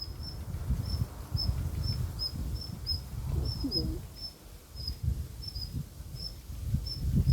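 An insect chirping in a steady rhythm, about three short high chirps a second, over louder low rumbling and rustling noise.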